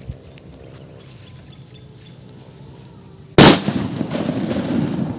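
A homemade Zamboanga firecracker goes off with a single loud bang about three and a half seconds in, followed by a rumbling tail that fades over a second or so.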